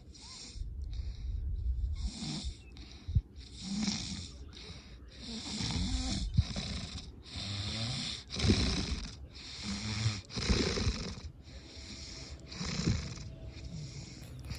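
Snoring: a string of noisy snoring breaths, about one every two seconds, some louder and more snorting than others.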